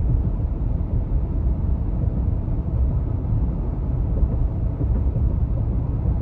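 Road and engine noise inside a moving truck's cabin at cruising speed: a steady low rumble.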